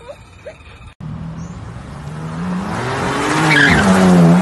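Car engine revving hard as the car speeds past, its pitch rising and falling and the sound growing louder toward the end, with tyres skidding and squealing. It starts abruptly about a second in.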